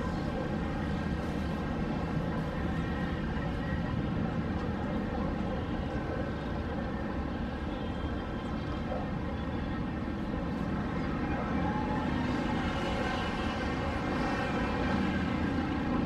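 A steady engine drone with many even tones over a low rumble, growing a little louder near the end.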